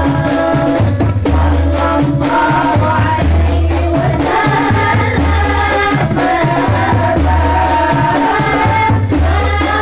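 Rebana ensemble playing through a PA system: a woman sings into a microphone over hand-struck rebana frame drums keeping a steady rhythm, with deep low beats repeating at an even pulse.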